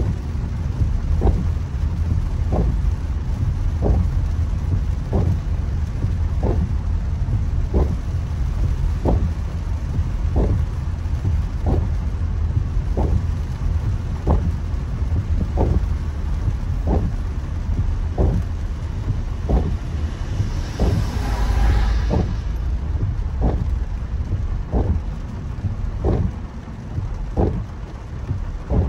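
Heavy rain falling on a car with the steady low rumble of driving on a wet road, and the windscreen wipers knocking at each stroke about every 1.3 seconds. About 20 seconds in, a louder rushing hiss of water spray lasts a second and a half.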